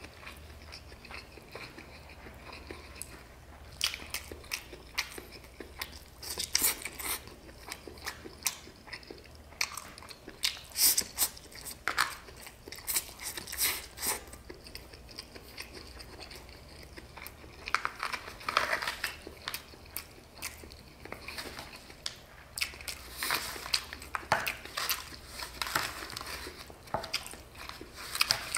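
Person eating chow mein noodles close to the microphone: irregular chewing, lip smacks and wet mouth sounds.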